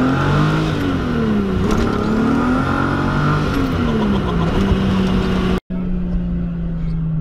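Turbocharged VR6 engine of a Golf 2 heard from inside the cabin, its revs climbing and dropping several times as it pulls through gear changes. The sound breaks off for an instant about five and a half seconds in and comes back as a steady engine drone.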